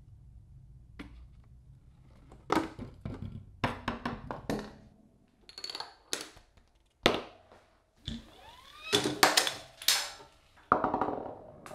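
A homemade chain reaction machine running: a can of tennis balls, dominoes, traffic cones, a soccer ball and a golf ball hit and topple one after another. The result is a string of irregular knocks, taps and clatters that come thicker in the second half.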